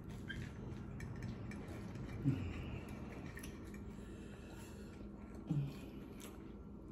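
Close-up eating sounds: wet chewing and squishing of spaghetti in the mouth, with faint ticks of a metal fork against a ceramic plate as the pasta is twirled. Two short low mouth sounds, a hum or gulp, stand out about two seconds in and again near the end.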